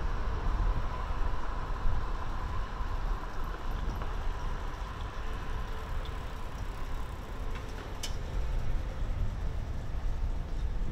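Steady low rumble of distant city traffic, with a faint steady hum that fades over the first few seconds and one sharp click about eight seconds in.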